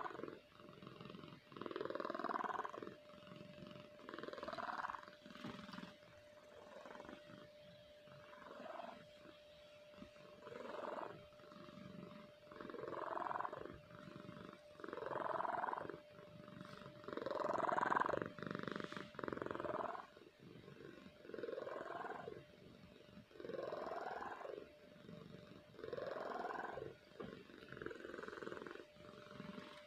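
Domestic cat snoring in deep sleep, one snore with each breath about every two seconds, each rising in pitch; the loudest comes about eighteen seconds in.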